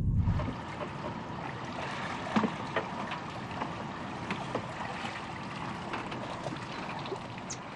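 Water lapping and splashing against a small boat's hull with wind, and scattered small knocks and clinks as a scuba diver climbs the boat's ladder in full gear; the loudest knock comes about two and a half seconds in. Background music cuts off in the first half second.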